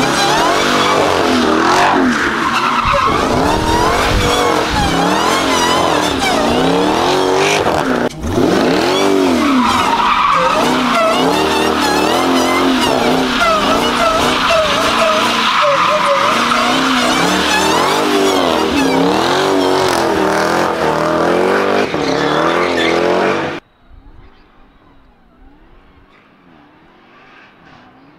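Jeep Grand Cherokee Trackhawk's supercharged 6.2-litre V8 running at high revs while its tyres squeal and warble in a burnout. The sound breaks off for an instant about eight seconds in, then cuts off abruptly near the end, leaving only a faint sound.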